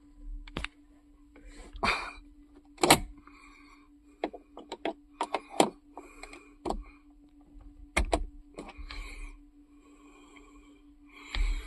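Irregular sharp clicks and knocks, a dozen or so, over a faint steady hum, like small parts being handled.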